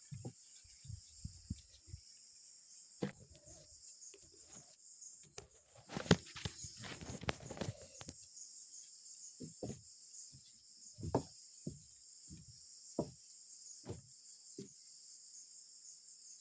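Steady high-pitched chorus of insects, with scattered footsteps and knocks on a wooden tree-top walkway. A denser run of knocks and rustling comes about six to eight seconds in.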